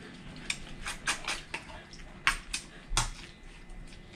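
Spoons and cutlery clinking against plates and metal cooking pots during a meal: a scattered run of light, sharp clinks, several in quick succession.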